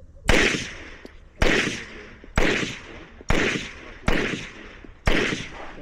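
Six handgun shots fired at a steady pace, about one a second, each a sharp crack with a short ringing tail.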